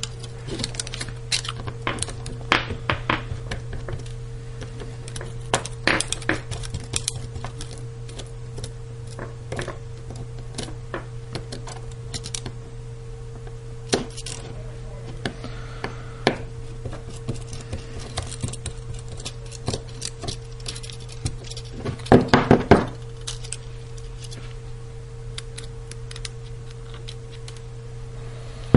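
Small metal clicks and taps as a small Phillips screwdriver works tiny screws out of an iPhone 4S's metal frame and the parts are handled, with a quick run of louder clicks about three-quarters of the way through. A steady low hum runs underneath.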